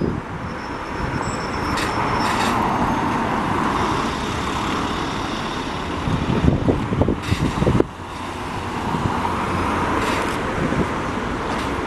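Single-deck bus engine running and its tyres hissing on the road as it pulls slowly round a turn close by, with a small car driving past partway through. Gusts of wind buffet the microphone about two-thirds of the way in.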